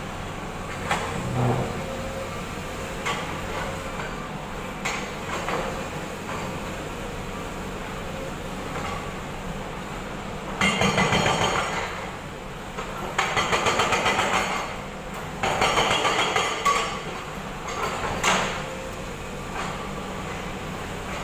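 Excavator-mounted hydraulic breaker hammering concrete in three bursts of rapid blows, each a second or two long, over the steady running of the excavator's engine. A few single knocks fall between them.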